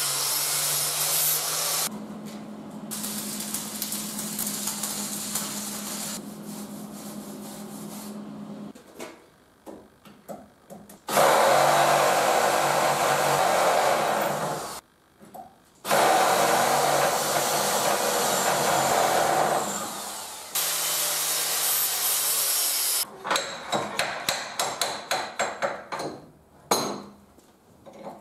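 Angle grinder grinding down welds on a steel vise jaw: it runs with a steady hum, then bites in hard in two long loud passes, with a short pause between them. Near the end comes a quick run of sharp metal knocks, several a second.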